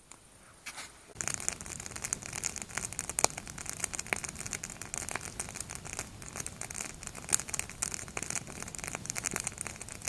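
Wood campfire crackling, starting about a second in: a dense, irregular run of sharp pops and snaps over the steady hiss of the flames.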